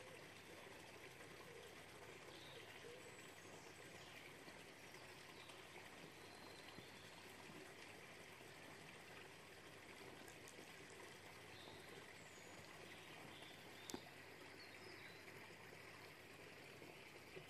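Near silence: a faint, steady background hiss, with one short click about three-quarters of the way through.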